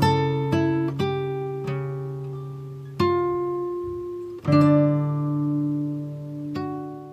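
Background music: acoustic guitar plucking slow notes and chords, each ringing out and fading, with the last chord dying away near the end.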